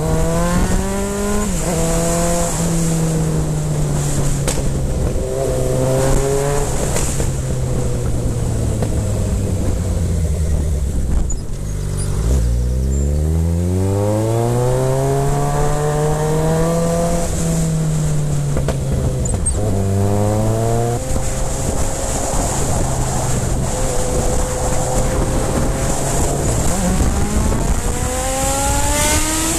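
Suzuki GSX650F inline-four engine, with its exhaust baffles removed, under way: the revs climb and fall through a series of gear changes. About eleven seconds in it eases right off, then pulls hard and rises steeply again.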